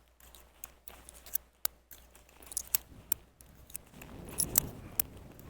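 Cimarron .45 Long Colt single-action revolver being handled after a misfire: a string of sharp, irregular metallic clicks as the gun is worked to get at the cartridge that failed to fire.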